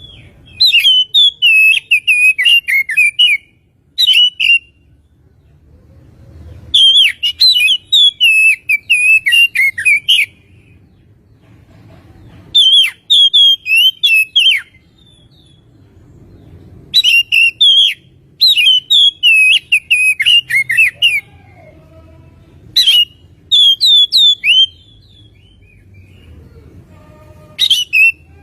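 Oriental magpie-robin (kacer) singing in bouts of rapid, varied whistled notes a few seconds long, broken by short pauses, the kind of song played as a lure to set a caged bird singing.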